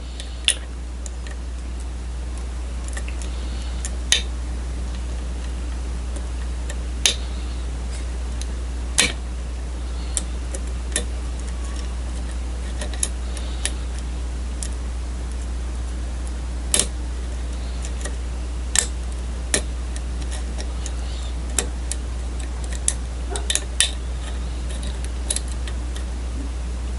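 Lock pick and tension wrench working the pin stacks of a challenge lock: sharp, irregular metallic clicks every second or two, a few close together near the end, over a steady low hum.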